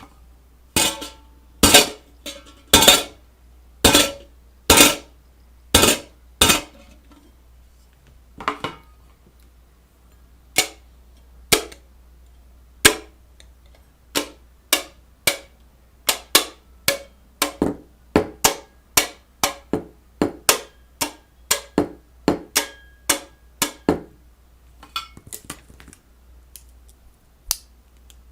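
A series of sharp knocks or strikes on a hard object, about one a second at first, then quicker, around two a second, through the middle, then sparser near the end.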